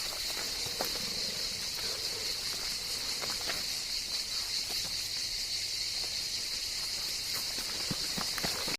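Night-time ambience of crickets: a steady high chirring drone, with a few scattered soft footsteps.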